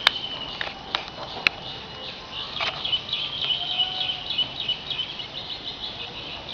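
High-pitched chirping of small animals outdoors: a steady high ring with a run of quick, repeated chirps from about three seconds in. A few sharp clicks come near the start.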